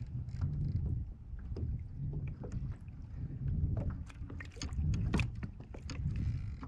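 Water and hull noise from a fishing kayak on the sea: low rumbling surges about once a second, with scattered sharp clicks and knocks that bunch up about four to five seconds in.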